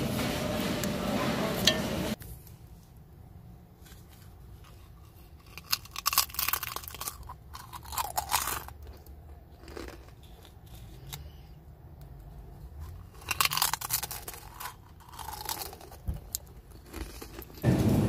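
A person biting and chewing a potato crisp: several separate spells of sharp crunching with quiet chewing between them. The first two seconds and the last half second are a steady shop background din.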